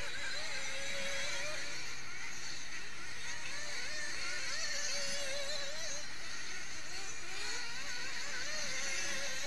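Several 1/8-scale nitro buggies' small two-stroke glow engines running at racing speed together, a buzzing whine whose pitch keeps rising and falling as the cars accelerate and brake.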